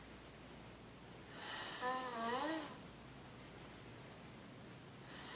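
A person snoring: one snore a little over a second in, lasting about a second and a half, breathy with a pitched tone that dips and then rises.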